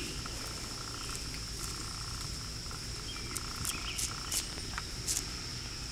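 Evening outdoor ambience of insects, likely crickets, trilling steadily, with an intermittent pulsing trill coming and going every second or so. A few faint sharp clicks are scattered through it.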